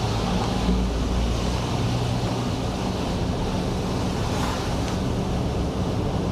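Cadillac XT5 with its 2.0-litre turbo engine driving along a wet road: steady tyre and road noise with a low hum underneath.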